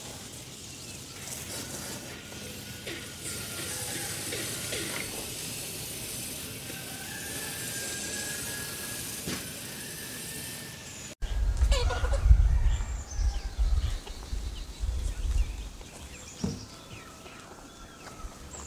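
Farmyard ambience: scattered bird and poultry calls over a steady hiss. After an abrupt cut about eleven seconds in, a loud low rumble on the microphone comes in, with a few quick gliding bird calls over it.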